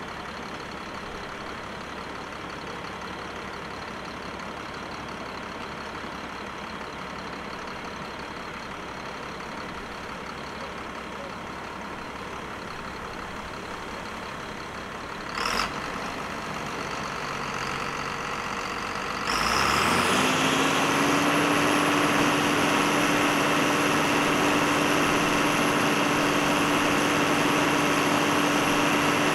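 Farm tractor engine idling steadily. About two-thirds of the way in it is throttled up, its note rising and then holding at a higher steady speed with a high whine over it, as it powers the high-dump forage wagon raising its box to unload chopped corn into a dump truck.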